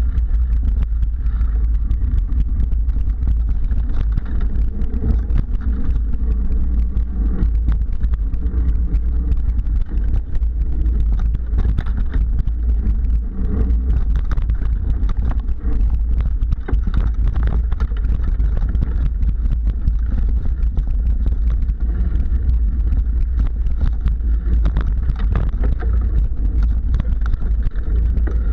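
Mountain bike riding over dirt singletrack, heard from a handlebar-mounted camera: a constant heavy low rumble with frequent rattles and clicks as the bike goes over bumps in the trail.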